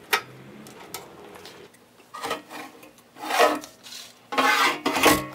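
A couple of small screwdriver clicks, then three scraping rasps as the metal cabinet of an RCA Type TMV-122-B cathode-ray oscillograph is worked open off its chassis. The last rasp, about four and a half seconds in, is the loudest and longest.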